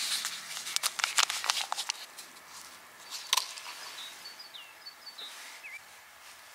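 A run of crisp crackling and clicking rustles in the first two seconds and one sharp snap about halfway, followed by small songbirds chirping softly with short rising and falling notes.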